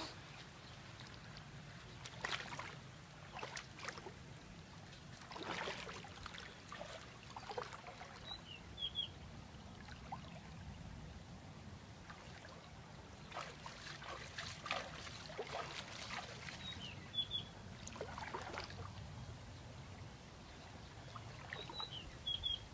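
Shallow muddy water splashing and sloshing as a person wades and works their hands in it, in irregular bursts with quieter stretches between.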